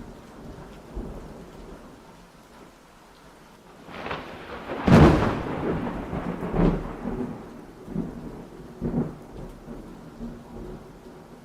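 Thunderstorm: steady rain with a loud clap of thunder about five seconds in, followed by smaller rumbles of thunder.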